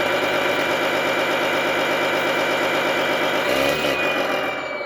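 Sound module of an RC wheel loader playing a simulated heavy-machine engine and exhaust note through its speaker, running steadily with an even rhythmic pulse. About three and a half seconds in, the pitch shifts and the low end falls away toward the end.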